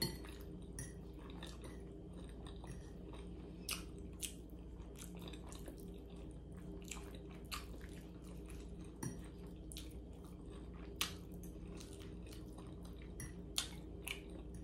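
A person chewing a mouthful of soft Hamburger Helper pasta, with scattered sharp clicks as a fork scrapes and taps the plate, over a steady low hum.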